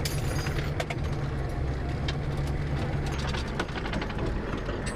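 Engine of an armoured military vehicle running steadily as it drives, heard from inside the cabin, with loose metal gear inside giving occasional clicks and rattles.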